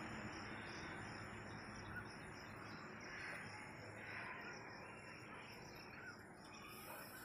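A faint, steady chorus of insects trilling high and pulsing gently, over a soft background hiss.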